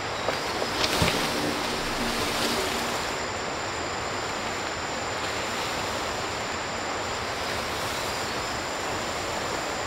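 Steady rushing forest ambience with a thin, high, steady drone running through it. A single sharp knock about a second in, as a sawn timber beam is handled on the forest floor.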